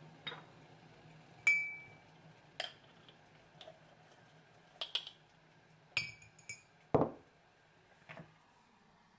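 A series of separate clinks of a glass jar, a metal tea infuser and a porcelain mug while loose fruit tea is spooned into the infuser, two of them ringing briefly. About seven seconds in there is a louder, duller knock as the jar is set down on the wooden counter.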